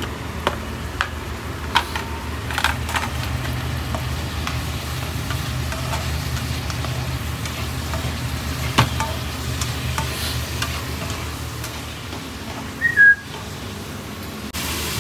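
Chicken pieces frying in red chili paste in a non-stick pan, sizzling steadily while a spatula stirs, with several sharp taps and scrapes of the spatula against the pan. A brief high-pitched chirp sounds near the end.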